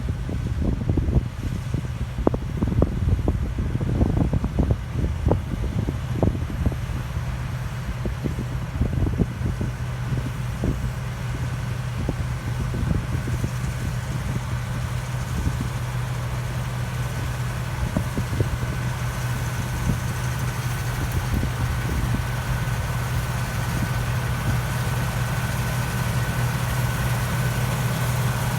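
Combine harvester's diesel engine running steadily with a deep hum. Gusts of wind buffet the microphone through roughly the first third, then the sound settles into an even drone with a faint whine.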